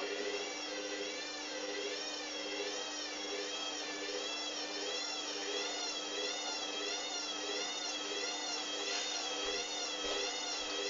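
Hoover Dynamic washing machine's motor running with a steady hum and a whine that wavers up and down in pitch about twice a second, as the drum turns.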